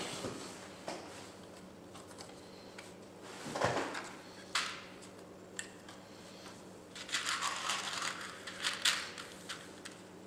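Hands handling an opened HP Pavilion laptop's plastic base and motherboard: scattered light plastic clicks and knocks, then a longer stretch of rattling and crinkling about seven seconds in.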